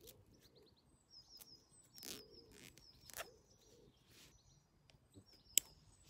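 Songbirds singing high, wavering trills, over soft rustling and clicking of hands handling dry leaves and camouflage mesh. A single sharp click, the loudest sound, comes near the end.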